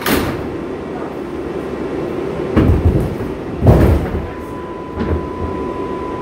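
R142A subway train standing at a station platform, its equipment humming steadily. A sharp clack comes right at the start, two loud bangs come in the middle and a lighter one follows. A steady high tone sets in about four seconds in.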